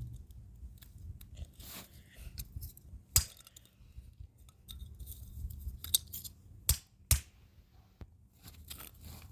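Pins and plastic of an RFID keypad lock being snapped and crushed with a hand tool: scattered crunching with three sharp snaps, one about three seconds in and two close together near the seven-second mark.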